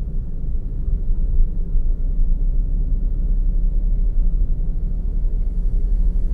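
Steady low rumble of a car driving along, engine and tyre road noise with no sudden changes.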